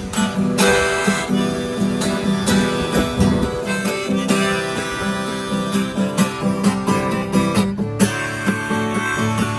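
Instrumental break of a gospel song: acoustic guitar strumming under held melody notes, with a lower bass line coming in near the end.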